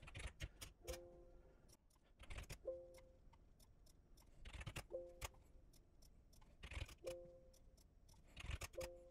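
Faint computer mouse clicks and keystrokes in quick clusters, each cluster followed by a short two-tone Windows alert chime. The chime sounds five times, about every two seconds: renaming the protected files sets off administrator-permission warnings.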